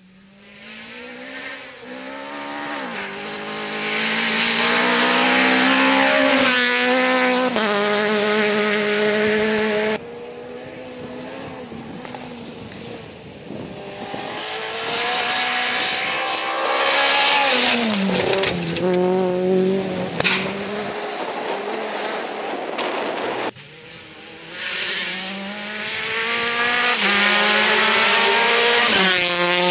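Rally cars flat out on a gravel stage, including a Renault Clio and a Citroën DS3. Their engines rev hard through the gears, the pitch climbing and dropping at each upshift. Three separate passes cut one after another, with one engine's pitch falling sharply as it lifts off and goes by.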